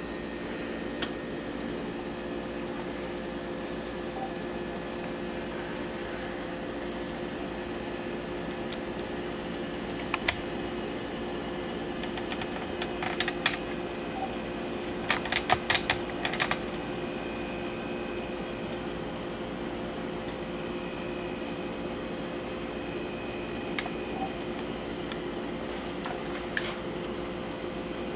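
Pot of water at a rolling boil with a thermostat and its housing sitting in it: a steady hum, broken by a few short clusters of sharp clicks and taps, most of them just past the middle.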